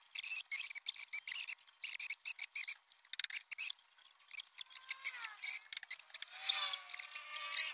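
Metal lathe being turned over slowly by hand, with clusters of dry clicking from the mechanism. A squeak slides down about five seconds in, and a longer squeal follows near the end.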